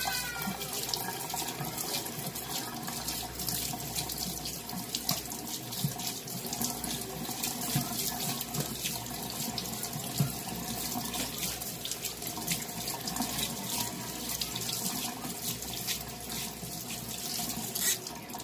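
Kitchen faucet running into a stainless steel sink while forearms and hands are rinsed under the stream, with steady water noise and irregular splashing.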